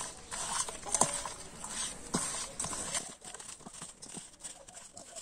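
Hand-mixing raw carp pieces with spices in a bowl: irregular knocks and wet slaps about once a second, over a steady hiss.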